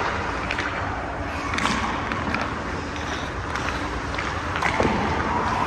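Ice rink ambience: skate blades scraping on the ice and a few sharp clicks of hockey sticks on pucks, over a steady low rumble in the rink.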